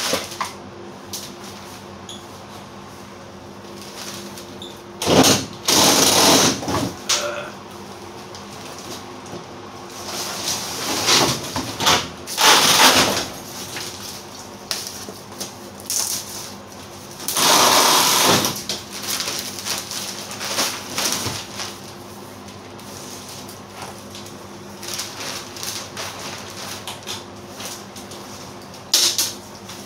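Intermittent scraping and rustling at the food truck's ceiling panels, in bursts of one to two seconds, the longest about five seconds in and around twelve and eighteen seconds in, over a steady low hum.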